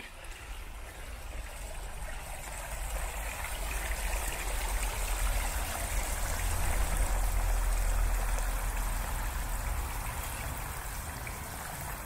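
Small waterfall on a woodland brook: a steady rush of splashing water with a low rumble underneath, swelling in loudness around the middle and easing near the end.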